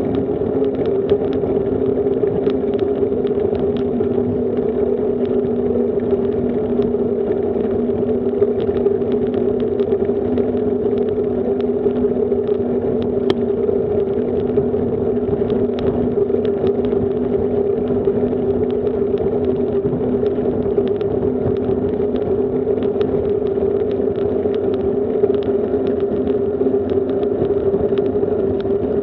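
Bicycle rolling steadily on asphalt, heard from a camera mounted on the bike: a constant hum of tyre and wind noise with many small rattling clicks.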